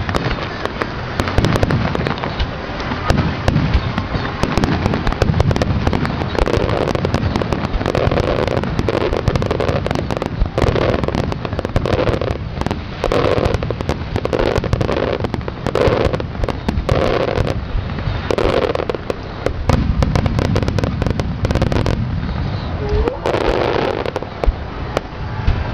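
Starmine fireworks barrage: shells bursting in rapid succession, a dense, continuous run of sharp bangs and crackles, thickest in the middle.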